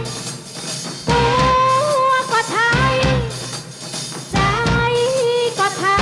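A live band playing a Thai pop song: drum kit and a melody held in long notes with small slides, phrase by phrase.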